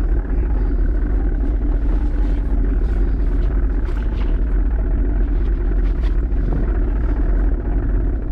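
Steady low rumble of a small motorboat under way: its motor running and wind buffeting the microphone, blended into one even drone, with a few faint clicks.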